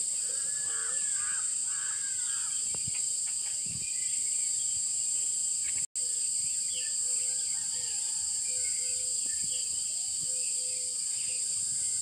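Outdoor ambience with a steady, high-pitched drone of insects, and crows cawing twice about half a second in, with scattered calls from other birds after. The sound drops out briefly near six seconds.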